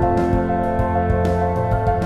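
Instrumental background music of held chords, changing chord a little past halfway.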